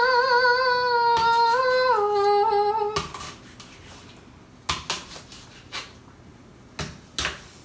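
A woman sings a long held note on the word "unknown" with a wavering vibrato, stepping down in pitch about two seconds in and stopping about three seconds in. Then a knife chops an apple on a cutting board: a handful of separate knocks.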